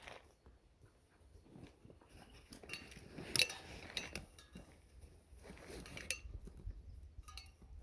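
Camping gear being handled: scattered small metallic clinks and rustling, with one sharper click about three and a half seconds in.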